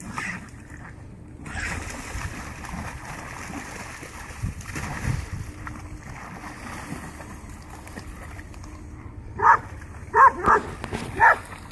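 A dog wading and splashing in river shallows, then barking four times in quick succession near the end.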